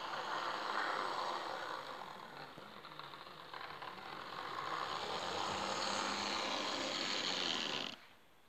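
Model FS E646 electric locomotive pulling passenger coaches along the track: its motor and wheels make a steady whirring run that grows louder as the train comes past, then cuts off suddenly near the end.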